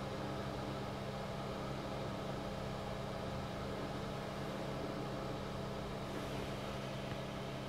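A 486 desktop computer running on the test bench: a steady fan whir with a constant low electrical hum, unchanging while the machine sits at its BIOS screen.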